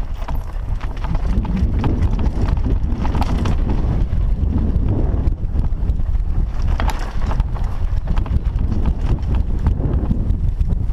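Wind rushing over a helmet-mounted microphone, with the irregular rattling and knocking of a mountain bike running fast down a rough dirt trail.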